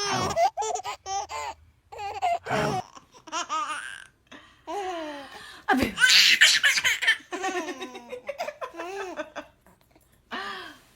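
Baby laughing in repeated short, high-pitched bursts, loudest about six seconds in.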